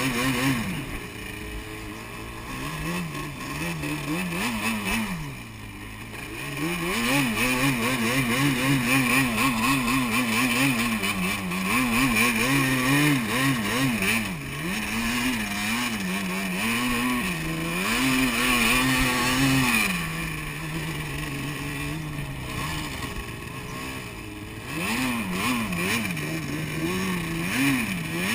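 Sport quad (ATV) engine revving up and down again and again as it is ridden through sand, its pitch rising and falling with each throttle burst. It is loudest through the middle of the stretch.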